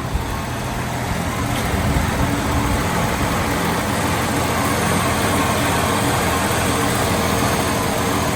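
1965 Ford Mustang engine idling steadily, running smooth and even; it purrs like a sewing machine.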